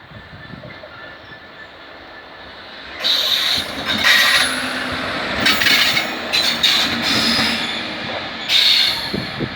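A train passing close by. A low rumble turns suddenly loud about three seconds in, then high-pitched screeching comes and goes from the wheels on the rails.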